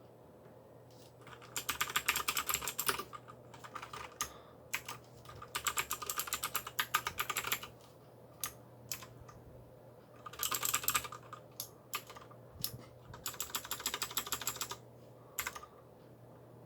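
Aula mechanical keyboard with clicky blue switches being typed on: four bursts of rapid keystrokes, with single key presses in between.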